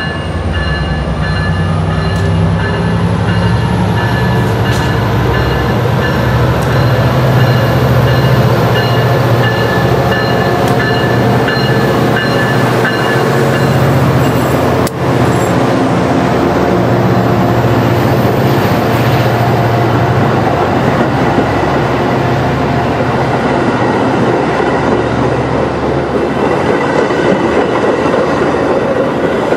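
Metra commuter train rolling over a microphone set on the ballast between the rails: a loud, steady rumble of steel wheels on rail with clickety-clack as the cars pass directly overhead.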